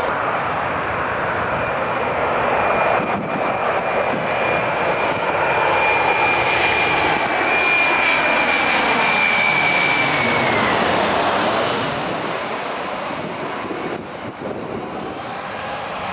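Boeing 737 jet airliner on final approach passing low overhead: its engines run with a steady noise and a high whine that drops in pitch as it passes about ten seconds in. After that the engine sound slowly fades as the plane moves away.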